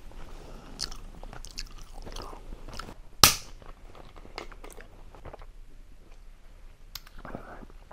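Close-up chewing of a mouthful of rice ball, with small wet mouth clicks. One short, sharp burst of noise sounds about three seconds in and is the loudest thing heard.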